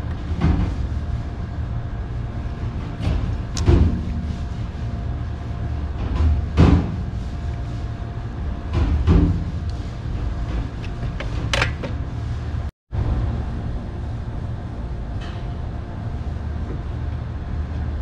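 Handling noise from wiring work in an air conditioner's outdoor unit: a few scattered knocks and rubs as wires and plastic parts are handled, over a steady low hum.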